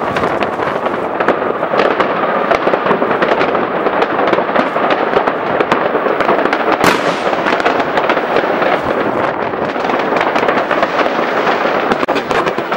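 Many fireworks and firecrackers going off at once, crackling and banging without a break, with one especially sharp crack about seven seconds in.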